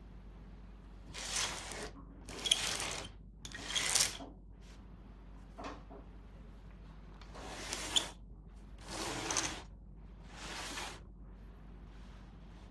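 Concentric rings of a rotating-ring puzzle table being turned by hand, sliding with a scraping rush in six separate pushes, several ending in a sharp click.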